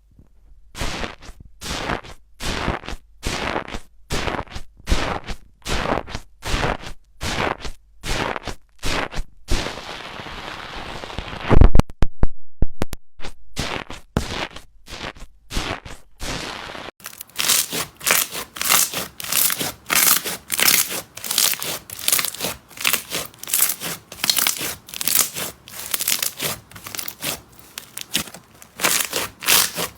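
Slime being squeezed and pressed by hand in rhythmic crackling, crunching squishes, roughly two a second, with a hissing stretch and one loud sharp pop near the middle. The squishes come faster in the second half.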